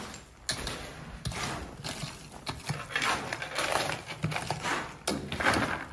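Flat shovel scraping and scooping into loose gravel and rubble, with stones crunching and clattering in irregular strokes.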